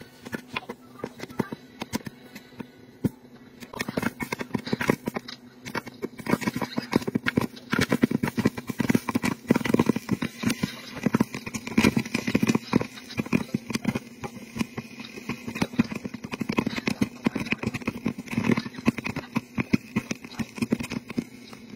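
Corn kernels popping inside an electric stir-type popcorn maker with a clear dome. Scattered pops at first, then a dense rapid crackle of popping from about four seconds in, over the steady hum of the machine's stirring motor.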